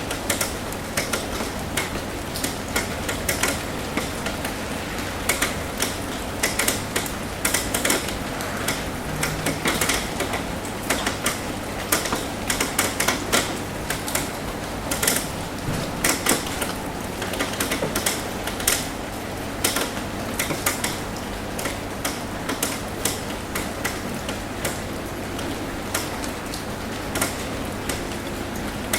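Rain falling on a metal roof: many irregular, sharp drop taps over a steady hiss of rainfall.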